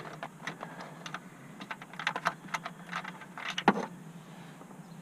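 Irregular light clicks and taps of a nut driver working screws and plastic trim around a pickup's dashboard instrument cluster. One click about three-quarters of the way through is louder, and a low steady hum runs underneath.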